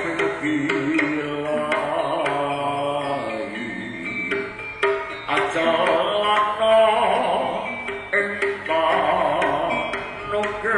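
Live East Javanese jaranan music: a gamelan ensemble with kendang hand drums beating under a wavering melody line.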